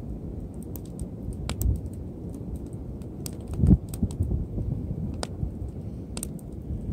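Wood campfire crackling: scattered sharp pops over a steady low rumble, with a dull thud about three and a half seconds in.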